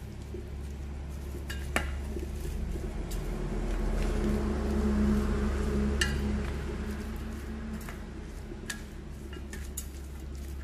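Kitchen utensils clinking against dishes several times, sharp separate clinks, over a steady low hum; a rushing noise swells in the middle and fades.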